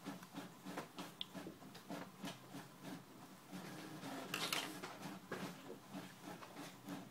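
Faint small clicks and scratches of a thin tool picking at the parts inside an opened iPhone 4, with one louder scrape about four and a half seconds in.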